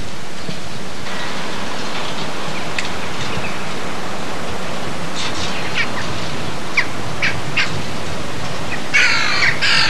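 Steady rushing outdoor noise on an old camcorder soundtrack, with a few short bird chirps in the second half and a louder burst of chirping near the end.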